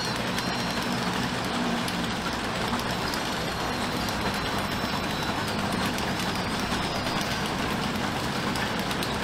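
Lombard steam log hauler, a tracked steam tractor, running as it drives along, its steam engine and crawler tracks making a steady mechanical noise. Birds chirp a few times in the background.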